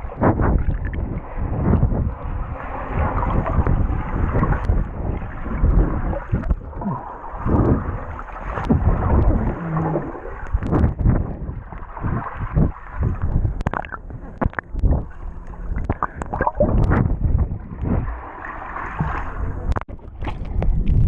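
Pool water sloshing and splashing close to the camera, sounding muffled, with irregular knocks and splashes throughout.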